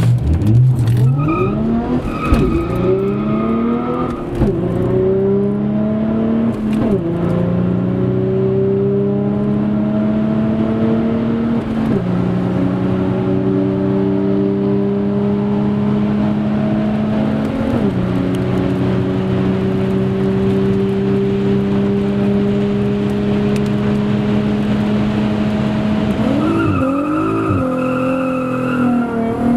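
Audi A4 B5 with a swapped 3.0 TDI V6 turbodiesel and 3-inch exhaust, heard from inside the cabin, accelerating through the gears. The engine note climbs and drops at each upshift, five times, each gear pulling longer than the last, then rises slowly in a high gear. Near the end it dips and wavers.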